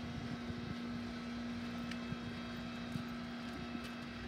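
Steady low mechanical hum holding one unchanging tone, with a few faint clicks as the fuel nozzle and hose are carried up the stepladder to the wing.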